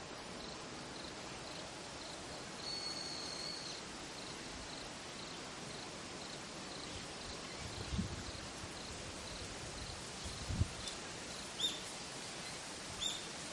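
Outdoor ambience: a steady hiss with an insect chirping in a regular pulse, about three chirps a second, and a higher note held for about a second near the start. Short bird chirps come near the end, and two low thumps fall in the middle.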